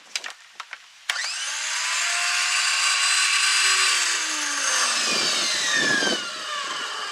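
Electric motor of a Powerplay Spyder 2000 PSI pressure washer switched on with a click about a second in, its whine rising as it spins up. It runs for a few seconds, then spins down with a falling whine.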